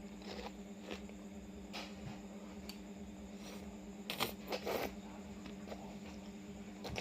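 A person eating raw oysters: a few short, sharp mouth and eating noises, the loudest two coming close together a little past four seconds in. A steady low hum runs underneath.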